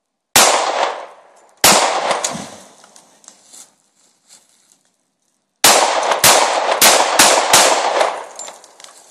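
.45 ACP Glock Gen4 pistol firing: two shots just over a second apart, a pause of a few seconds, then a quick string of about six shots, each report ringing off the trees.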